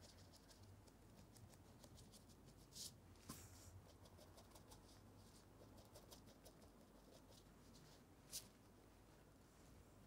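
Very faint, scattered light taps and scratches of a paintbrush dabbing acrylic paint onto a canvas, with a few slightly louder strokes about three seconds in and again about eight seconds in.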